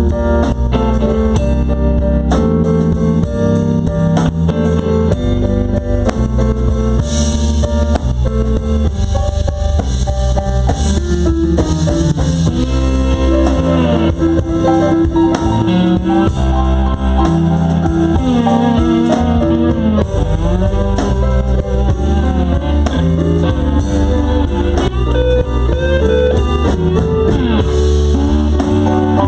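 Slow blues band instrumental: a lead guitar solo with bent notes that slide up and down, over drum kit and bass.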